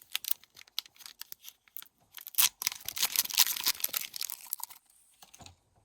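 Hockey card pack wrapper crinkling and tearing, with quick clicks and rustles of cards being handled; the densest stretch of rustling comes in the middle.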